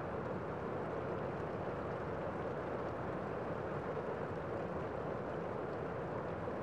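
Steady rain falling: an even, unbroken hiss with no separate drops or other events standing out.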